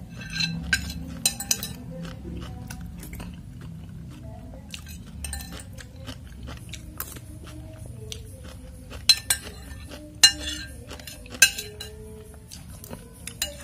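Metal spoon and fork clinking and scraping against a glass soup bowl while eating meatball soup with noodles, with three louder ringing clinks about a second apart in the latter part.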